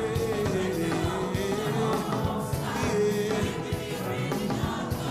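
Gospel worship song: a sung melody held and wavering over a band with a steady beat, with voices joining in.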